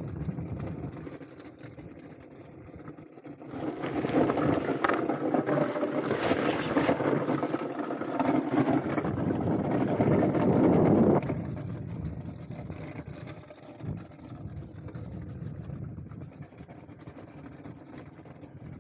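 Skate runners scraping at speed over rough lake ice, with wind buffeting the microphone. The scraping swells to a loud, coarse hiss about three or four seconds in and drops off abruptly about eleven seconds in.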